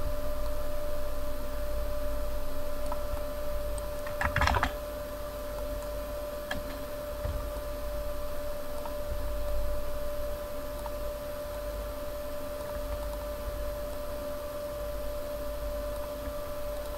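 Clicks from a computer mouse and keyboard: a quick run of clicks about four seconds in, then a few scattered single clicks, over a steady electrical hum.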